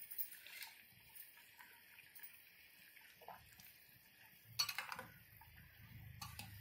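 Sugar syrup bubbling softly around gulab jamuns in a steel pot, with a steel spoon clinking against the pot a few times about four and a half seconds in as they are stirred. A low hum rises toward the end.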